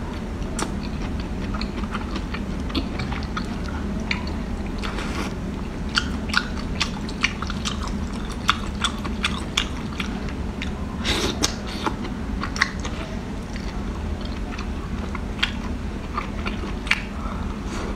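Close-miked chewing and sucking on octopus tentacles in spicy chili oil: irregular wet clicks and smacks of the mouth, most frequent in the second half, over a steady low hum.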